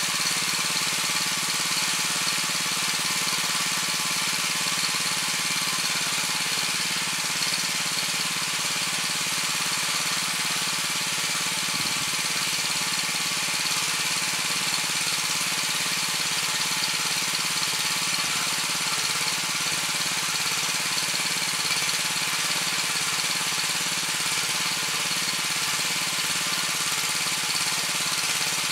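Weima WM 900 tiller's 7 hp engine running steadily.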